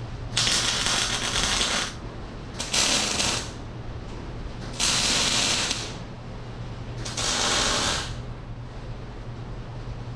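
Wire-feed welder laying four short tack welds on a loader bucket's steel side piece: four crackling, sizzling arc bursts of about a second each, separated by short pauses.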